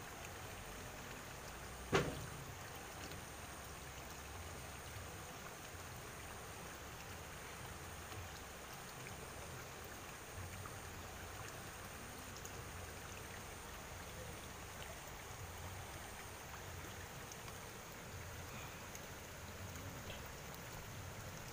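Faint, steady outdoor background noise with a low rumble, broken by one sharp knock about two seconds in.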